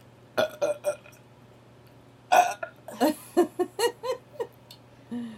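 A person burping several times in a row: a few short burps, a longer loud one about two seconds in, then a quick run of about six short, pitched burps.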